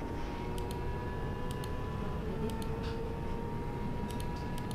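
Kawasaki ZX-6R inline-four engine held at high revs during a flat-out top-speed run, under a steady rush of wind noise. Its whine climbs slowly as the bike keeps accelerating. A few light ticks come and go.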